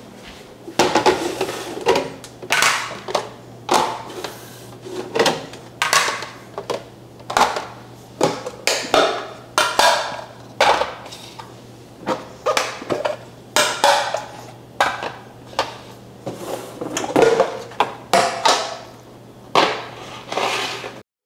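Clear plastic food-storage containers, with their lids and grid inserts, clattering and knocking as they are set down, pulled apart and fitted together on a hard countertop. The clacks are irregular, about one every half second to second, and many ring briefly.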